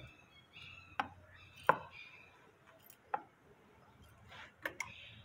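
Faint handling noise: about half a dozen short clicks and knocks at irregular intervals as the tractor's oil dipstick is wiped with a rag and handled.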